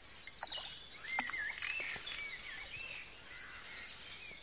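Songbirds singing, with many short overlapping chirps and warbling phrases, and a few soft clicks in the first two seconds.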